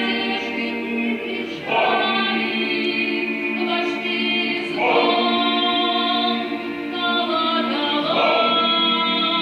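A cappella choir singing held chords, moving to a new chord about every three seconds.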